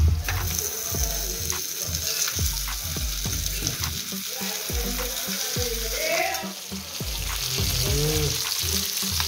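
Fish and liver frying and sizzling in pans on a gas stove, with a steel spatula scraping and clicking against the metal as the food is stirred and turned.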